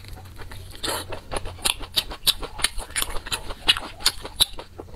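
Close-miked chewing of a crisp pan-fried stuffed pastry: a run of sharp, irregular crunching clicks, several a second.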